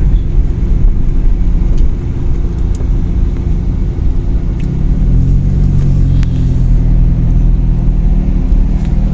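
Car engine running as the vehicle drives, a loud steady low rumble whose pitch rises a little around the middle.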